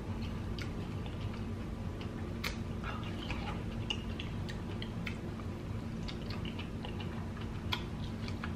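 Eating ripe kiwi fruit by hand: scattered wet mouth clicks and chewing, with small sticky sounds of the fuzzy skin being pulled off with the fingers. Underneath runs a steady low hum.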